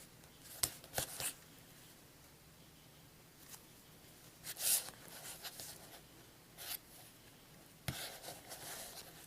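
Small hard objects being handled: a few sharp clicks and knocks with brief rustling, as the metal tactical pens are picked up and set down.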